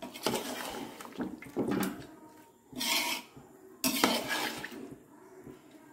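Metal ladle stirring freshly added rice through the biryani liquid in a metal pot, scraping and clinking against the pot's sides in several uneven strokes, with a sharp clink about four seconds in.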